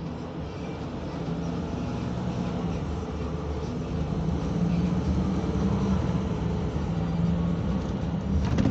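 Onboard running noise of a Mercedes Intouro II coach: diesel engine drone and road noise heard from inside the passenger cabin, growing louder as the coach drives on. A short knock comes near the end.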